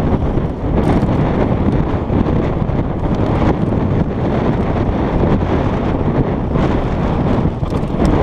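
Wind buffeting the action camera's microphone as a mountain bike rides fast along a dry dirt track, with tyre noise on the dirt and short knocks and rattles from bumps in the trail.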